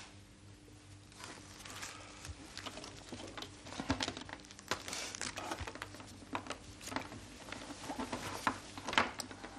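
Paper wrapper crinkled and rustled by hand: a long run of irregular crackles and rustles, with the sharpest crinkles near the end.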